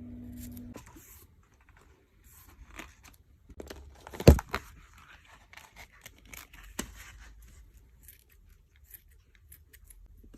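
Tape and packing materials being handled by hand: tape peeling and tearing, snips and small scraping clicks, with one sharp click about four seconds in. A low hum stops just under a second in.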